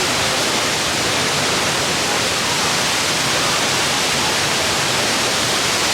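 Steady, loud rush of the La Fortuna waterfall, heavy falling water crashing into its plunge pool.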